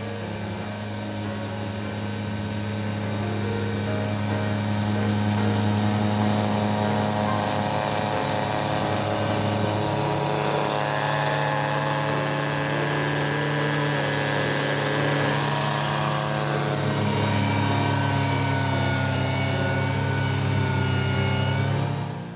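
Kubota B2601 compact tractor's three-cylinder diesel running hard, driving a PTO snowblower through deep snow. A steady engine note that steps up in pitch about halfway through and back down near the end.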